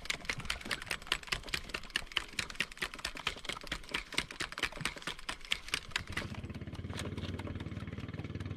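Rapid, irregular clicking and ticking, several a second. About six seconds in the clicking gives way to a boat engine running with a low, steady hum.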